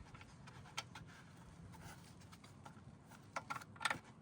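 Hand tools and small parts being handled: a few sharp clicks, one just before a second in and a cluster of louder ones near the end, over a faint low hum.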